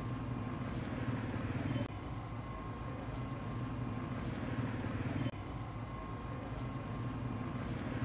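Steady low mechanical hum of a running engine or motor. It breaks off and resumes abruptly twice, about two and five seconds in.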